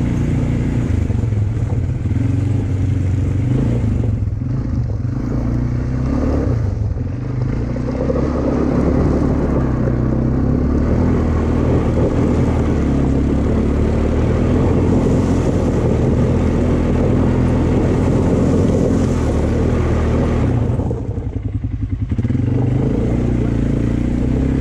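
A vehicle engine running steadily with a low rumble, easing off briefly near the end.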